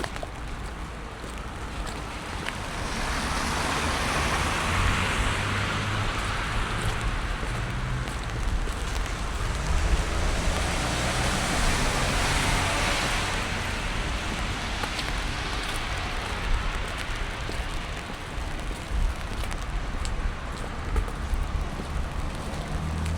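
Car tyres hissing on a wet road as traffic passes, the hiss swelling and fading twice, over a low engine hum and steady rain.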